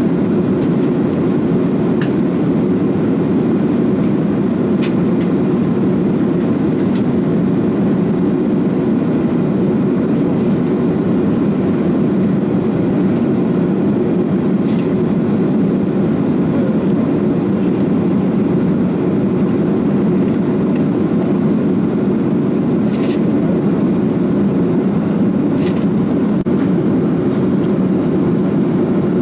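Airbus A340-600 cabin noise: the steady low rumble of airflow and its four Rolls-Royce Trent 500 engines, even in level throughout. A few faint clicks stand out, two of them near the end.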